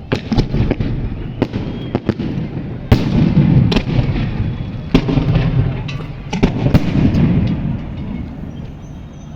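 Fireworks going off in quick succession: a string of sharp bangs and crackles at irregular spacing over a continuous low rumble, with the loudest bang about three seconds in.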